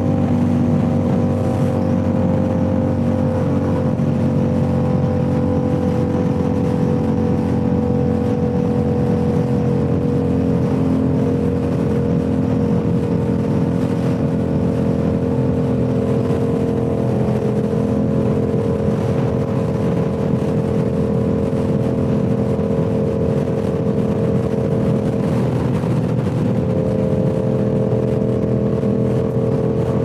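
Yamaha R7's parallel-twin engine running through a Toce full-system exhaust while the bike is ridden at a steady cruise. Its note sinks slowly, then steps up in pitch near the end.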